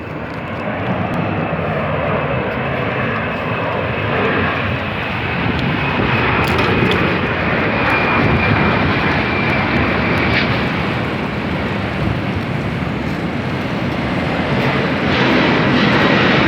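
A vehicle moving at speed: a steady rush of wind and running noise with a thin high whine held throughout, getting louder over the first few seconds as it picks up speed.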